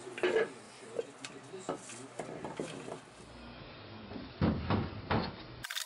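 Small cedar wood box being handled, its lid and base knocking and clicking together. There are many light knocks, and a louder group of thumps about four and a half seconds in.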